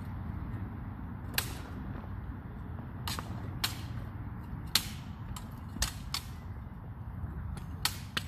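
Backsword blades clashing in a sparring bout: about eight sharp clacks at irregular intervals, some in quick pairs, the loudest a little past the middle.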